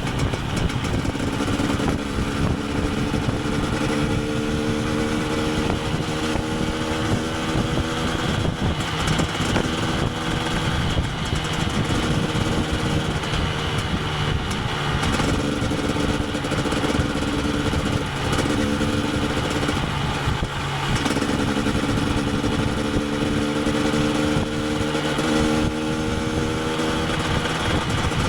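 KTM 250 EXC TPI single-cylinder two-stroke engine running under way, its note slowly rising and falling with the throttle; the note breaks off and picks up again a couple of times in the second half.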